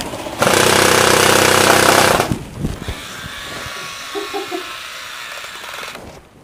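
Airsoft electric gun firing one fast full-auto burst of about two seconds, a loud rapid rattle. After it, only quieter background noise.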